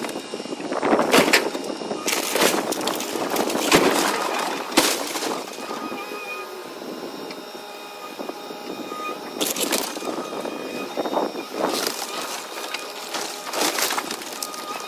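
A Caterpillar excavator tearing apart a wood-frame house: repeated cracking and splintering of timber and crashes of falling debris over the machine's steady engine running. The breaking comes in bursts, most of it in the first few seconds, then again about two-thirds of the way through and near the end.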